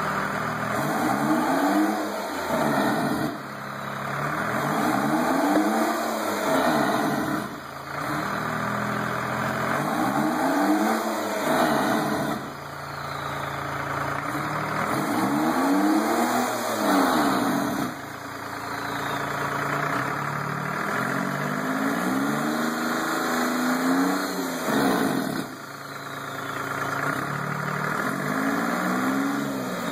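A turbocharged Detroit Diesel two-stroke engine on a test stand is revved by hand at its throttle lever. It climbs and falls in pitch about six times, dropping back briefly to idle between the runs.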